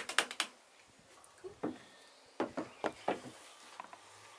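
A quick run of sharp clicks and knocks at the start. One more knock comes about a second and a half in, then a cluster of knocks between two and a half and three and a half seconds in.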